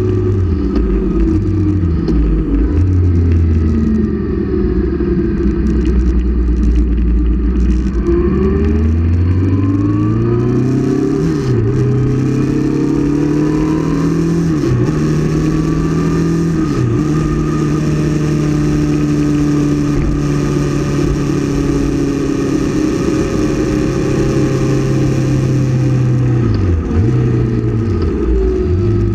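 Motorcycle engine heard from the rider's seat over wind noise: it slows at first, then accelerates with the pitch rising from about eight seconds in, holds a steady run broken by a few brief dips in pitch, and falls away near the end as the bike slows.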